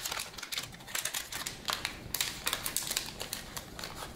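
Trading cards being pulled from a booster pack and thumbed through in the hands: a rapid, irregular run of light clicks and snaps of card stock.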